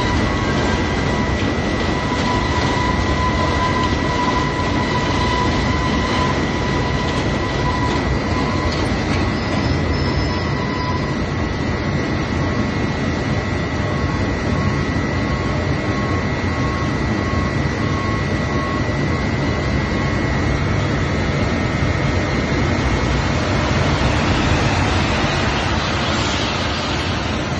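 Industrial feed-mixing plant machinery running steadily, with a constant high whine over the mechanical noise that fades about two-thirds of the way through.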